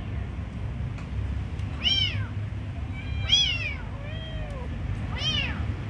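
Kittens meowing: three short, high-pitched meows spaced about a second and a half apart, with a fainter, lower meow between the last two, over a steady low rumble.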